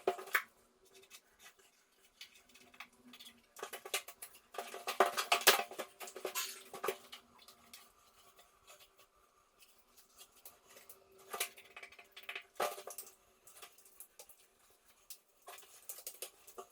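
Plastering trowel scraping and clicking against the wall and its tools, in irregular bursts with pauses between.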